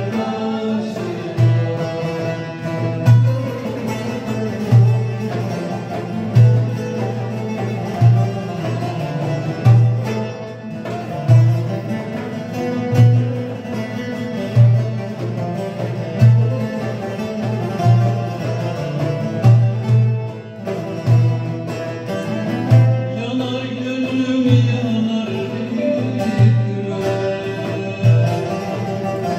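Live Turkish folk music on two bağlamas (long-necked Turkish lutes) over a frame drum and a metal darbuka, the drums keeping regular deep strokes under the plucked strings.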